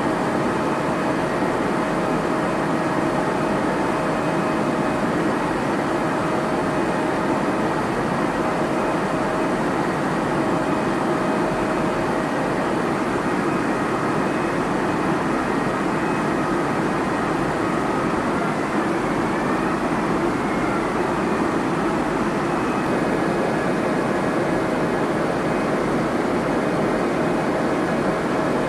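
Steady drone of a KC-46A Pegasus tanker in flight: jet engine and airflow noise with a few faint steady tones running through it.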